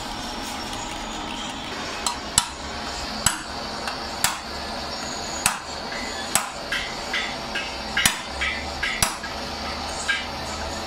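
A hand hammer tapping on the metal top tank of a truck radiator around the filler neck, about ten sharp strikes at irregular intervals starting about two seconds in. Several strikes are followed by a brief metallic ring.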